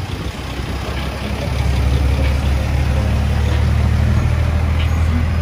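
A Condor box truck's diesel engine running close by, getting louder about a second and a half in as the truck pulls away and drives past, with a steady low hum.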